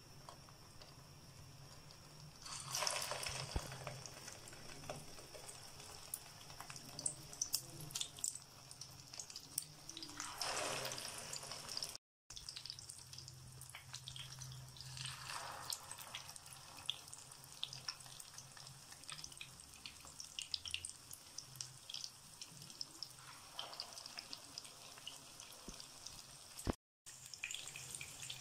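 Chicken and vegetable cutlets frying in shallow oil in a frying pan: a steady crackle of small pops, with a louder hissing sizzle several times as another egg-dipped cutlet is laid into the hot oil.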